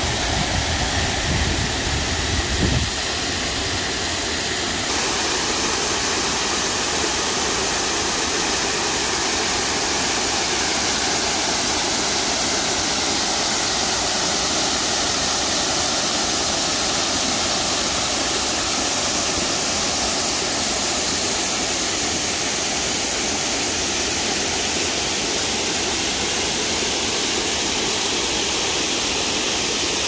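The Pliva waterfall, a 22-metre fall into a pool, rushing steadily with an even hiss of falling water. A low rumbling buffets the sound for the first three seconds or so.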